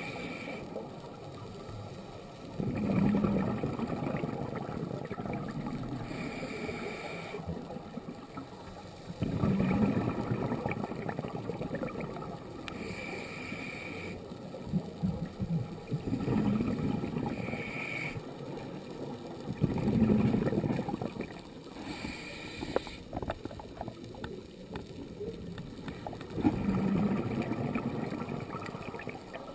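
Scuba diver breathing through a regulator: a short hiss on each inhale, then a louder, lower rush of exhaust bubbles on each exhale, about every six or seven seconds.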